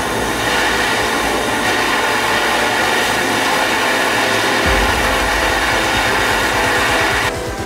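Portable butane gas torch burning with a steady jet hiss. It cuts off suddenly shortly before the end.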